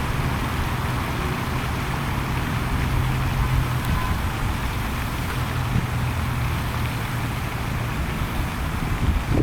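A steady low engine hum over a constant wash of outdoor background noise.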